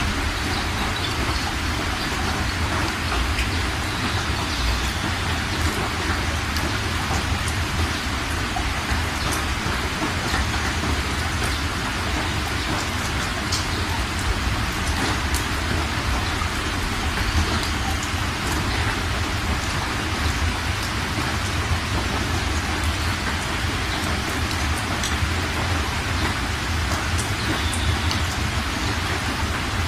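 Fast floodwater rushing and splashing over rocks, a steady dense rush with a low rumble underneath.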